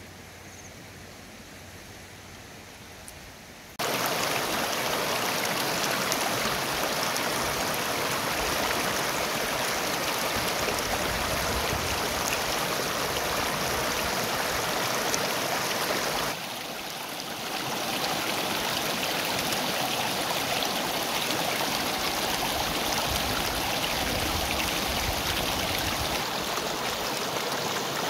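Shallow river rapids rushing steadily. The sound cuts in suddenly about four seconds in after a quieter start, and dips briefly about halfway through.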